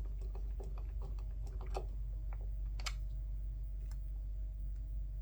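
Light clicks and taps of small plastic headset parts and screws being handled, denser at first, with a sharper click about three seconds in, over a steady low hum.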